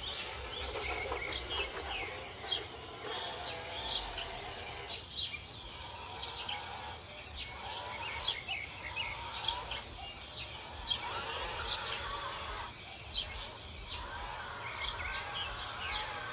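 Small birds chirping repeatedly over a background hiss, with a few sharp clicks.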